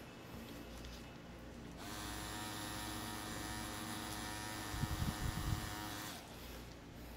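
Electric tattoo machine running steadily as it shades skin, starting up about two seconds in and stopping about six seconds in. A few low thumps come a little after five seconds.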